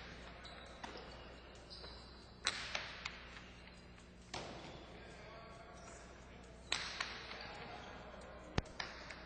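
Jai-alai rally: the hard pelota cracks against the fronton walls and thuds in and out of the wicker cestas, several sharp echoing hits a second or two apart.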